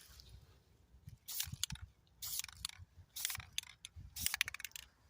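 Four short bursts of mechanical clicking and rattling, about one a second.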